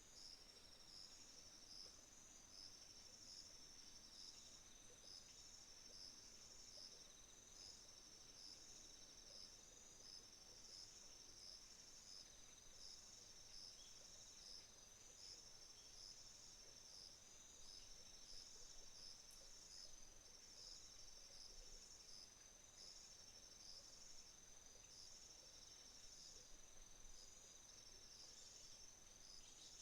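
Faint autumn crickets chirping: a high pulsing chirp repeated in trains of a couple of seconds with short breaks, over a second insect's steady high trill.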